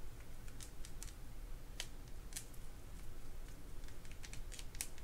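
Faint, irregular light clicks and ticks from small parts of a Shakespeare GX230 spinning reel being handled as grease is brushed onto its crosswind gear.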